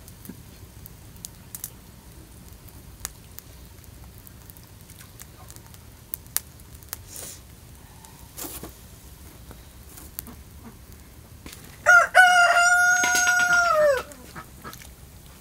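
A rooster crowing once near the end: a short first note, then a long held note that drops in pitch as it ends. Before it, only faint scattered clicks.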